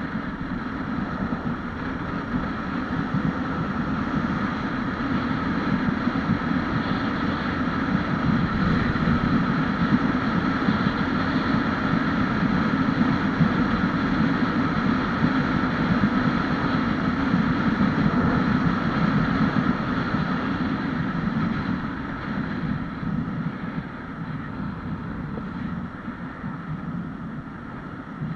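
Honda Wave 125X motorcycle's single-cylinder four-stroke engine running on its stock exhaust while riding, with wind rushing over the microphone. The sound swells through the middle and eases off after about twenty seconds.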